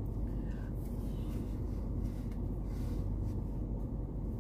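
Steady low rumble inside a car cabin, with a few faint rustles as a black face mask is pulled on.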